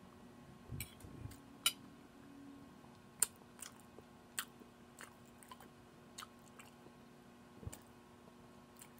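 Person chewing chili cheese omelette and toast: soft, wet mouth clicks and smacks at an irregular pace, roughly one a second, over a faint steady hum.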